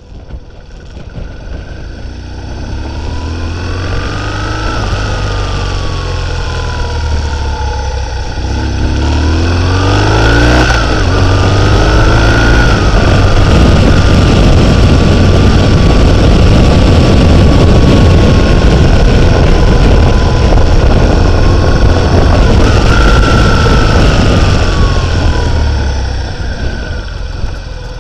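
Motorcycle engine pulling away and revving up and down through the gears, its pitch rising and dropping several times in the first half. From about ten seconds in, a loud rush of wind over the microphone builds as it picks up speed.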